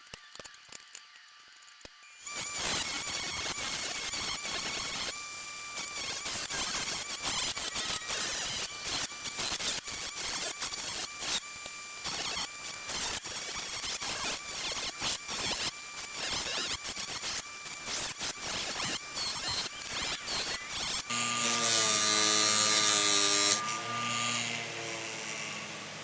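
A small handheld electric power tool running and grinding or scraping against a surface, with a thin steady whine and rapid gritty clatter. It starts about two seconds in and stops near the end, where a louder hiss with a few stepped low tones follows briefly.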